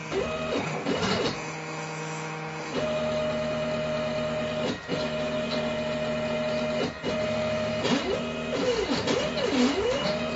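Stepper motors of a CNC Mogul machine whining as they drive a marker along outline text: steady tones during straight moves, broken by two brief pauses, then a pitch that swoops up and down repeatedly near the end as the head follows curves.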